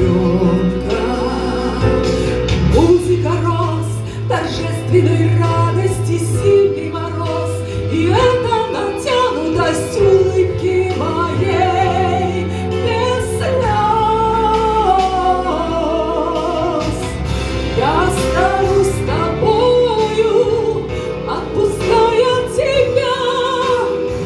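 Music: a woman singing a song over instrumental accompaniment with a steady bass line.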